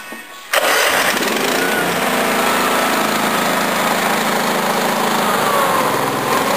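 Honda 13 hp single-cylinder OHV mower engine firing up about half a second in and then running steadily.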